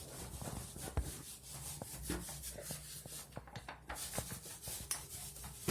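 Paintbrush being scrubbed back and forth across a wall to spread paint, in many short, irregular strokes, with a sharper knock about a second in.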